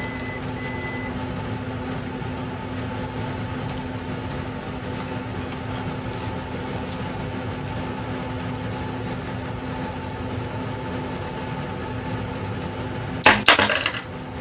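Steady background hum in a kitchen, with a short, loud clatter of metal kitchenware, such as a stainless steel bowl or utensil knocking, about 13 seconds in.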